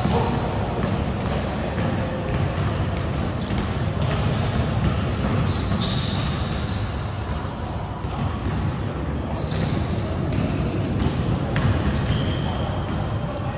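Basketball game on an indoor court: the ball bouncing on the floor and sneakers squeaking in short, high-pitched chirps, all echoing in a large hall.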